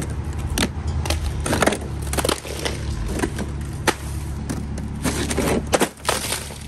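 Ice cracking and crunching as a gloved hand breaks the ice coating off a car's rear wiper blade and rear window, with a handful of sharp cracks as chunks snap loose and clatter off the glass. A steady low rumble runs underneath.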